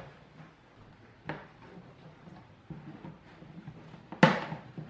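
A bonsai pot being handled on a tabletop: a knock about a second in, soft shuffling, then a louder knock near the end.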